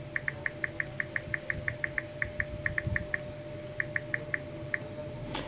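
Key-press clicks from a Samsung Galaxy Core Prime smartphone's on-screen keyboard as a password is typed: about twenty short, same-pitched clicks in quick succession, with a short pause about three seconds in before a few more. Each click marks a tap registering on the newly replaced touchscreen.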